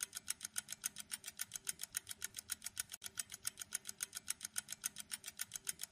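Quiz countdown-timer sound effect: fast, even clock-like ticks, about six a second.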